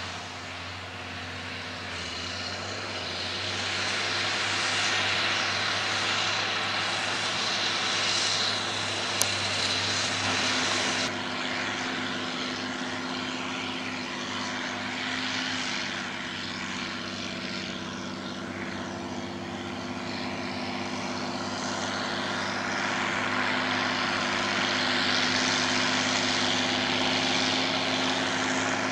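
Heavy tractor diesel engines working under load in the field: first a New Holland tractor pulling a harrow, then, after a cut about 11 seconds in, a Rába Steiger 250 articulated tractor pulling a disc harrow, its steady engine drone growing louder as it approaches. A sharp click about nine seconds in.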